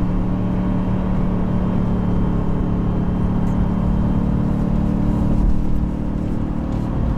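2019 Ford Ranger's 2.3-litre turbocharged four-cylinder heard inside the cab at full throttle while pulling a heavy trailer uphill: a steady, unbroken engine drone at high revs, around 4,000 rpm. Part of the sound is the truck's sound enhancement played through the cabin speakers.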